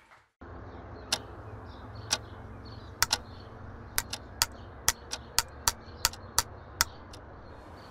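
Retractable pen clicked over and over, a few slow clicks at first, then faster and faster, over a low steady hum.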